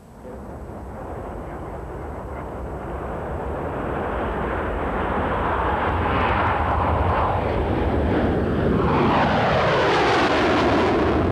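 Saab 37 Viggen fighter jet on afterburner, its jet noise growing steadily louder as it climbs out and passes close, with a sweeping, falling phasing whoosh as it goes by.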